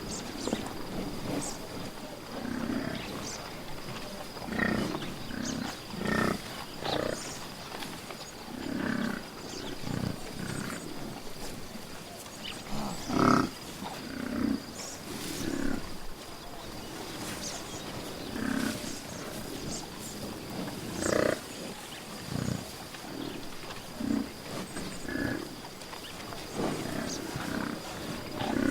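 An animal's short, low calls, repeated irregularly about every second or two, with one louder call about midway.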